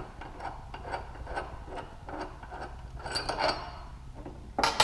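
Hand-worked metal crankcase-splitting tool being taken apart: a run of light clicks about four a second, a short ringing metallic scrape about three seconds in, and a sharp metal clank near the end.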